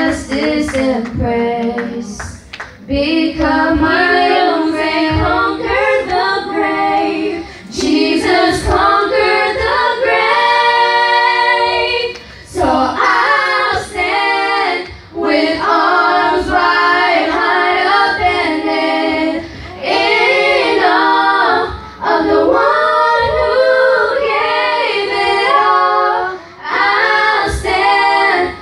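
Young girls singing a Christian worship song into handheld microphones, with other voices singing along, in phrases broken by short pauses.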